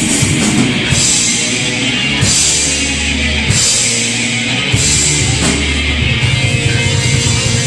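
Thrash metal band playing: distorted electric guitar and bass chords struck together with crash cymbals about once a second, in the song's closing section.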